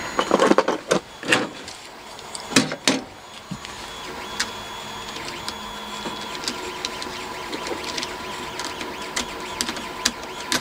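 3D printer running, a steady whirring hum with a thin high tone and scattered small ticks. In the first three seconds or so, several loud knocks and clacks of handling on the layout.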